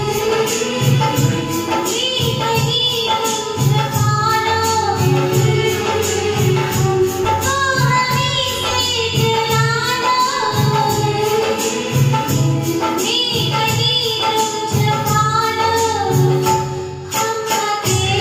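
A woman singing a Hindi film-song duet over a karaoke-style backing track with a steady beat and tambourine.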